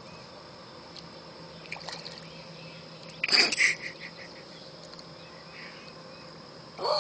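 A bass splashing and thrashing at the water's surface beside the boat for about half a second, a little over three seconds in, as it is grabbed by hand. A steady insect drone runs underneath.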